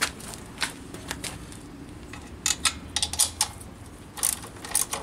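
Hand wrenches clinking and clicking on the steel locking nuts and bolts that hold a pressure-washer pump to its engine, as the bolts are loosened to take the pump off. A run of sharp metal clicks, bunched about two and a half seconds in and again near the end.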